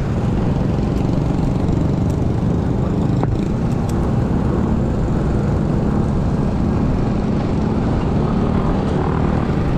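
Motor scooter riding through city traffic, heard from its handlebars: a steady low rumble of engine and road noise.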